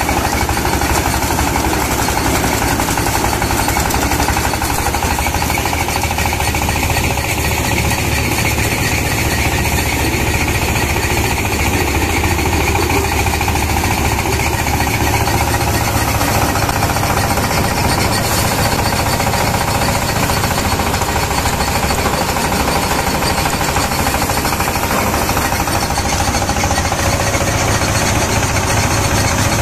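Power rice thresher running steadily under load as rice sheaves are fed in: a loud, rapid, unbroken mechanical clatter.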